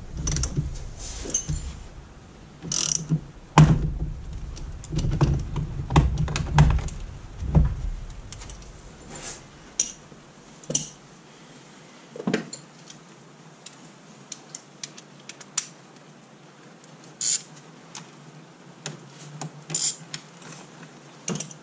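Ratchet clicks and metal tool clunks as a two-jaw puller is worked on a steering wheel hub to draw the wheel off its column. The clicks are irregular, busy with low thumps over the first half, then sparse.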